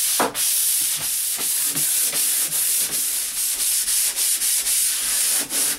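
Pole sander with 120-grit sandpaper rubbing over dried drywall joint compound in repeated back-and-forth strokes, a steady hiss.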